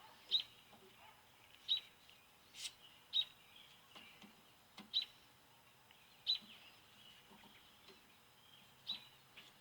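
A bird chirping: short single chirps repeated unevenly every second or two, with a few faint clicks in between.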